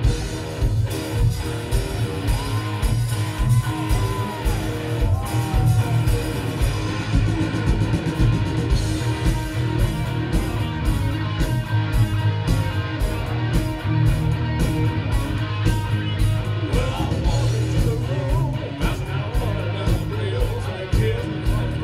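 Rock band starting a song, with drums keeping a steady beat under bass and electric guitar.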